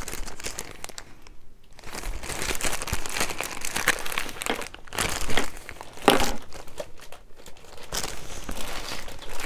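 Clear plastic poly bag crinkling and rustling in the hands as a packaged wallet is handled, in irregular bursts with short pauses about a second in and again near seven seconds.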